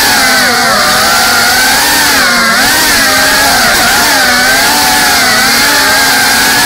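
GEPRC Cinelog 35 cinewhoop FPV drone's brushless motors and ducted 3.5-inch propellers whining loudly, the pitch rising and falling continually as the throttle changes through tight manoeuvres.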